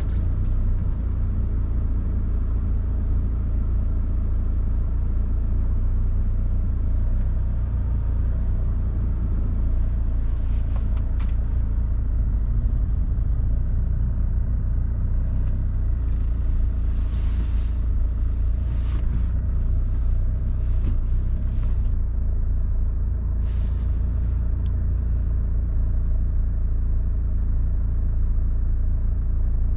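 Car being driven, heard from inside: a steady low rumble of engine and tyres, with a few brief rushes of hissing noise now and then.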